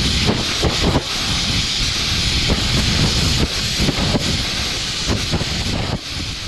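Compressed air blasting into a dirt-packed electrical connector to blow out the packed-in dirt and debris. It makes a loud, steady rushing hiss that wavers and sputters in strength, then drops a little near the end.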